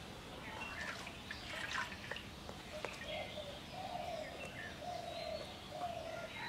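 Birds chirping and calling, with a run of about four short, level, low hooting notes in the second half. A few faint clicks in the first half come from the metal spatula on the clay pan as the roti is pressed.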